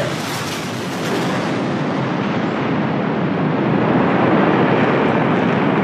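RAAF F-111's twin Pratt & Whitney TF30 turbofans on full afterburner during a dump and burn: a loud, steady rushing jet noise. The hiss is brightest for about the first second and a half, then turns duller as the jet climbs away.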